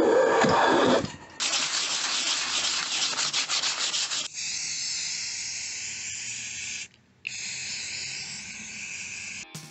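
Strokes of a hand tool shaving a pine board, then a board being hand-sanded with a sheet of sandpaper in fast rasping strokes. From about four seconds in, an aerosol spray can hisses steadily in two long bursts with a short break between them.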